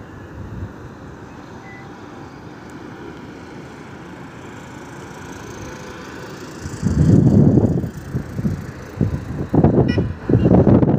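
Wind buffeting the microphone in gusts over a steady background rush. The gusts come about seven seconds in and twice more near the end.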